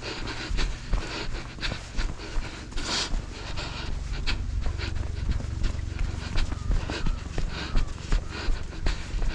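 Heavy, rhythmic panting breaths of a runner on a trail run, with a low wind rumble on the microphone that grows stronger partway through.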